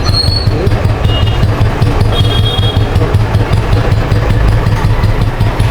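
Royal Enfield Bullet 350's single-cylinder cast-iron engine idling steadily with an even, regular exhaust beat. The freshly rebuilt engine runs smoothly, with no knocking or rattling.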